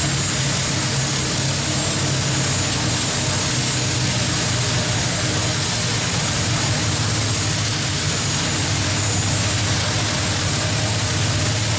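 Modified pulling tractor's engines idling steadily: a low, even drone with a faint high whine over it.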